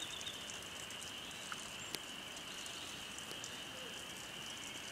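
Faint outdoor background: a steady high-pitched drone over a low hiss, with one faint click about two seconds in.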